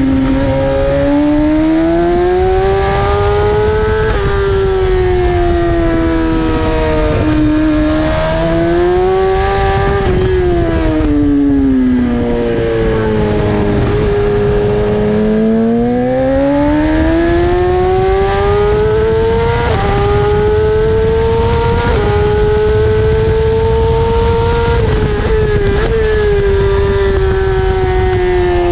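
BMW S1000RR's inline-four engine at racing speed, its pitch climbing under throttle, dipping briefly at each quick gear change and falling away as the bike slows, several times over.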